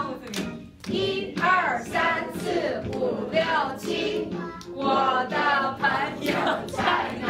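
A Mandarin children's song played from a recording, with voices singing together over music. Hands clap along to the beat.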